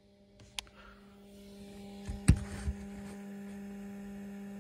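Yaesu FTM-200DR mobile ham radio giving off a steady low electronic hum from its speaker, growing louder over the first couple of seconds as the microphone nears the radio body. The owner notices this noise only in AMS or digital mode, not in FM. A single knock of handling comes about halfway.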